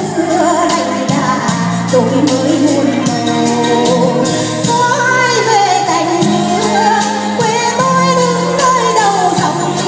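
A woman singing a Vietnamese song into a microphone over a backing track with sustained bass notes and a steady beat; her voice wavers with vibrato on held notes.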